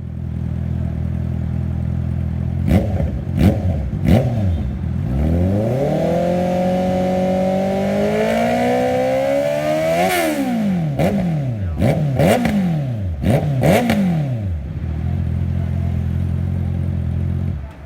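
A 2021 Honda CB650R's inline-four engine is revved on the stand through an aftermarket exhaust. It idles, gives three quick throttle blips, then climbs in one long rev for about five seconds and drops back. A run of four or five quick blips follows before it settles back to idle.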